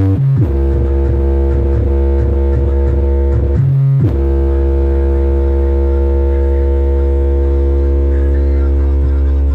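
Loud electronic music with a heavy, steady bass, played through a car sound system driven by an Eros MB 3.2k amplifier. The bass drops out briefly right at the start and again about three and a half seconds in.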